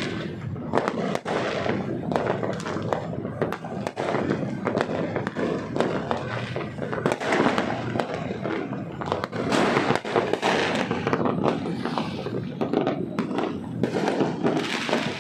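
New Year fireworks going off in a dense, continuous barrage: many sharp bangs and crackles overlapping with no pause, with voices faintly underneath.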